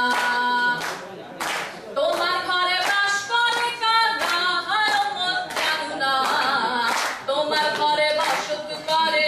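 A woman sings a Bengali Baul folk song into a microphone, with hands clapping along to it.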